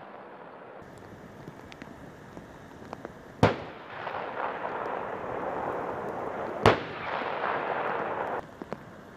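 Abrams tank main gun firing twice, about three seconds apart: two sharp, loud bangs, each followed by a rushing rumble that dies away.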